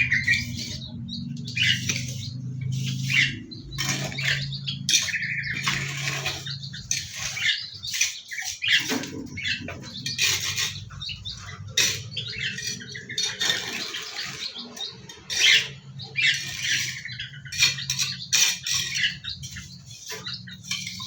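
Small aviary birds calling with harsh squawks and chirps, many short calls one after another, with wing flaps among them, over a low steady hum.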